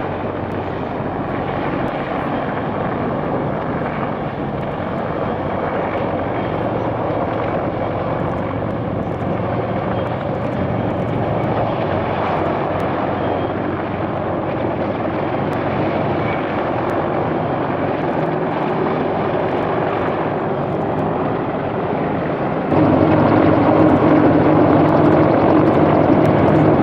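Military helicopters running, a steady rotor and engine noise that jumps louder about 23 seconds in.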